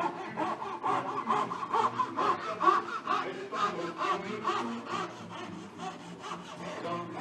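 Marquetry fret saw on a chevalet cutting through a veneer packet, with quick, even back-and-forth strokes, several a second.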